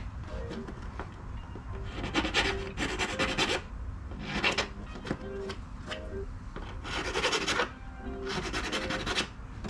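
Bolt holes in a carbon fiber fender being enlarged with a hand tool, cutting through the carbon in about five bursts of up to a second each.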